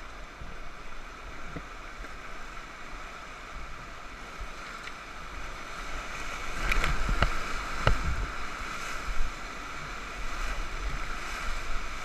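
Whitewater rushing around an inflatable raft as it runs a rapid, heard from the raft's bow. The rush grows louder a little past halfway as the raft drops into the waves, with two sharp knocks in that louder stretch.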